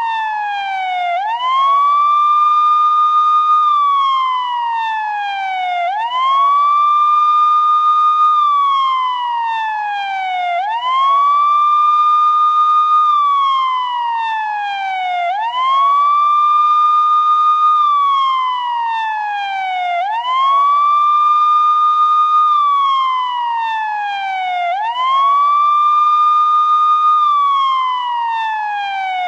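Police siren sounding a slow wail. Each cycle rises quickly, holds its high note for about two seconds, then slides slowly back down, repeating about every four and a half seconds.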